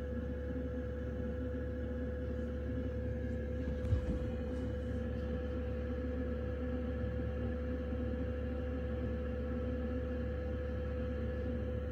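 Diesel night heater running under the van floor: a steady, even hum with a low rumble beneath it, and one short knock about four seconds in.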